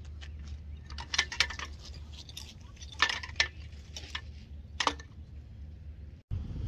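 Scattered metallic clinks and rattles from the crane scale's shackles and hooks as the Exer-Genie cord is pulled taut by a runner, a cluster about a second in, a couple around three seconds and one near five, over a steady low rumble.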